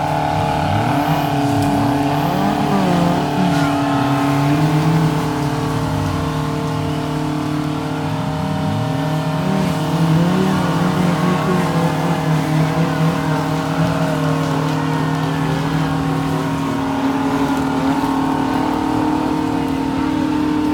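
Off-road 4x4 engines running steadily, while an engine revs up and down again and again over them.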